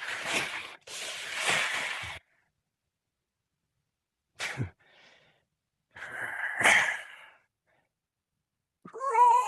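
Breathy, hissing vocal noises like sighs or exhaled breaths: a long stretch at the start, a short burst about halfway, and another near the end, with silent gaps between. A pitched, wavering tone begins just before the end.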